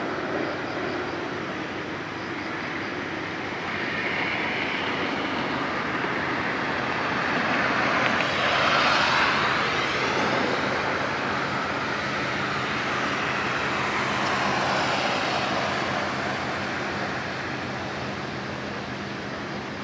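Road traffic noise, with one vehicle passing close by about halfway through, swelling and then fading.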